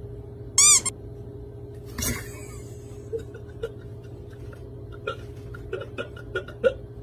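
A person tripping and falling onto a hard warehouse floor over a coiled hose: a short, high, wavering squeak, then a thud about two seconds in. A steady electrical hum runs underneath, and a run of short sharp sounds follows the fall.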